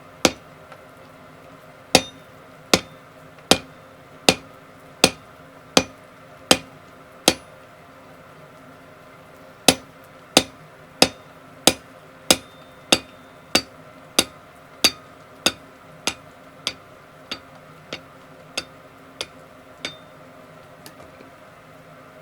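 Blacksmith's hand hammer striking hot steel round bar on the anvil to cut off a length: steady blows about one every three-quarters of a second, each with a short ring. A first run is followed by a brief pause and then a longer run whose blows grow lighter near the end, over a faint steady hum.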